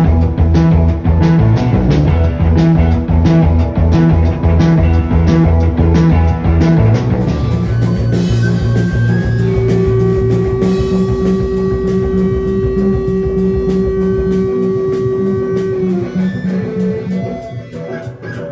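Live psychedelic rock band playing loud: drum kit, bass and electric guitars driving a heavy, fast riff. About seven seconds in the full riff drops away to long held electric-guitar notes ringing over a lighter cymbal pulse.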